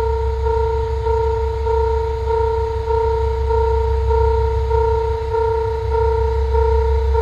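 Japanese railway level-crossing warning bell ringing: an electronic pulsed tone repeating steadily about one and a half times a second, over a low steady rumble.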